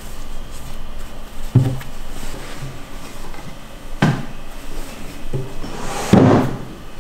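Wooden sideboard drawer being handled: it knocks as it slides and as cloth is lifted out, and is pushed shut with the loudest thud near the end.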